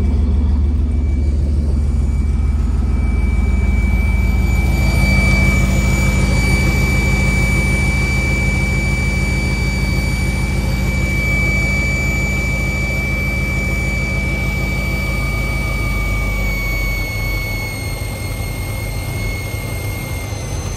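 V8 engine fitted with a freshly rebuilt Edelbrock 650 four-barrel carburetor, running steadily at idle. A few seconds in a steady high-pitched whistle joins the engine note and carries on, dipping slightly in pitch near the end.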